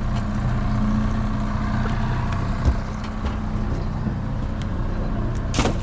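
Boat engine idling with a steady low drone, with a single knock about halfway through and a brief clatter near the end.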